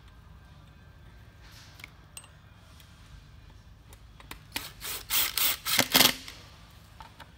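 Cordless drill-driver run in several short bursts to drive the screws of a lever handle's trim plate, starting about halfway through and loudest near the end.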